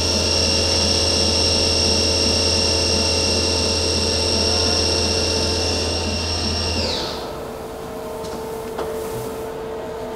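Live-tooling drive on the right turret of a Nakamura-Tome TW-20MM twin-spindle CNC turning center running at 3000 RPM with a steady high whine, which winds down in pitch and stops about seven seconds in. After that a lower steady machine hum remains.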